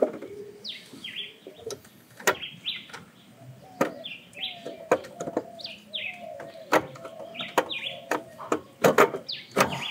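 Heavy metal accessory mount bracket knocking and clanking against the engine as it is worked by hand into place, irregular sharp knocks every second or so. A bird chirps repeatedly in the background with short falling notes.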